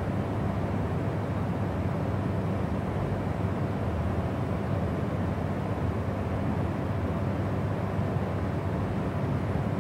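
Jet airliner cabin noise in cruise flight: a steady, even low rumble of engine and airflow heard from inside the cabin.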